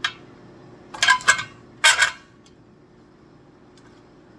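Sharp metallic clinks and rattles: one at the start, a quick cluster of three about a second in, and another about two seconds in, each ringing briefly.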